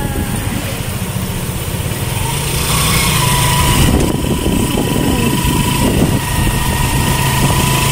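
A small vehicle engine running steadily, heard from inside the vehicle as it rides along, with a thin steady whine joining in about three seconds in.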